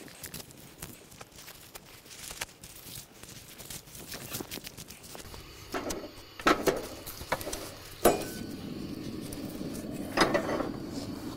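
Faint rustling in dry leaves. Then a two-burner camp stove's burner is lit and runs with a steady hiss. Metal clanks, loudest about 8 seconds in, come as a skillet is handled and set on the grate.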